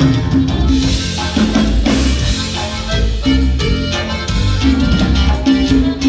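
Upbeat Latin-style dance music with a repeating bass line, drums and percussion.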